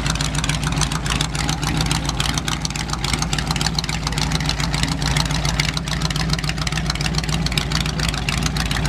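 Hot rod engine running at low speed through open, uncapped long-tube headers as the car creeps past: a steady, rapid rumble of exhaust pulses.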